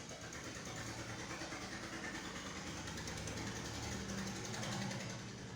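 A steady, low engine-like hum, swelling slightly near the end.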